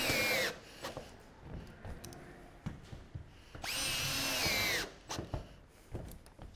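Cordless drill driving hex-head roofing screws through corrugated steel roof sheeting. There are two high whines of about a second each, one at the start and one about three and a half seconds in, each dropping in pitch just before it stops. Between them come light knocks and footsteps on the metal sheet.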